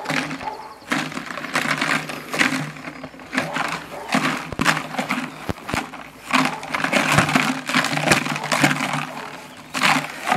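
Hard plastic rattling and knocking in repeated bursts, from a plastic container shaken and struck by the decoy during bite work. Under it runs a dog's low growling as it holds the bite sleeve.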